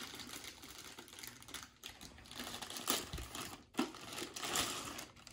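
Clear plastic bag crinkling and rustling as a small toy TV is worked out of it by hand, in irregular handling noises with a few sharper crackles in the second half.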